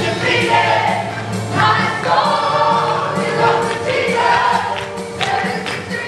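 A church worship team singing a gospel worship song into microphones over instrumental backing, with sustained sung phrases and a steady beat.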